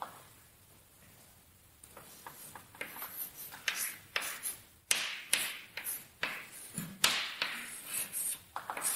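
Chalk writing on a blackboard: a string of irregular short taps and scratchy strokes, starting about two seconds in.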